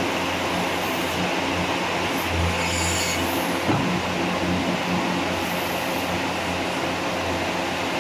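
Portable full-hydraulic diamond core drilling rig running steadily, its power unit giving a constant low hum that swells briefly a few seconds in. A single sharp metallic knock sounds about three and a half seconds in.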